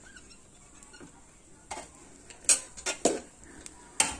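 A slotted spatula knocking and scraping against a steel cooking pot as cooked biryani rice is turned over from the bottom up. Several short clinks and scrapes start about a second and a half in, the loudest about halfway through.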